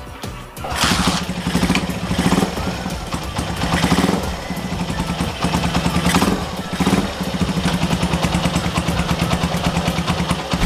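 Honda Mega Pro's single-cylinder engine catching just after the start and running, with the throttle blipped several times, the first test run after its carburettor has been cleaned and refitted.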